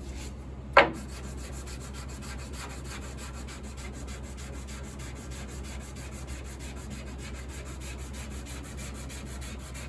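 Sanding block with sandpaper rubbed steadily back and forth over a hard shellac French-polish finish on a wooden piano case, grinding the surface down flat. A single sharp knock sounds about a second in.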